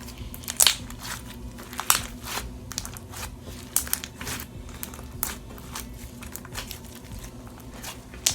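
Irregular crinkling and crackling with sharp clicks as wax polymer beads and clear slime are handled.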